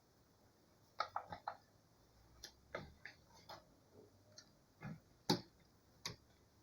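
Irregular small clicks and taps: a quick run of four or five about a second in, then single ones scattered through the rest.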